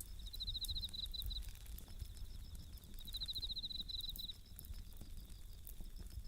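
Japanese bell crickets (suzumushi) singing, with two bouts of fast-pulsed high trills about three seconds apart over a fainter steady chirring, while a wood campfire crackles with sharp little pops.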